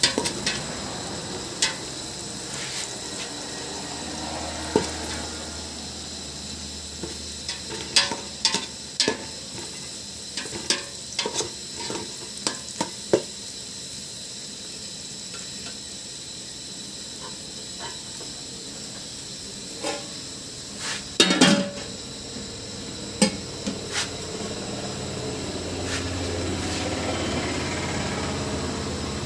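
A cooking utensil stirring, knocking and scraping against a pan while food fries in oil with a steady sizzle. The sharp knocks come in bunches, the loudest group about two-thirds of the way through.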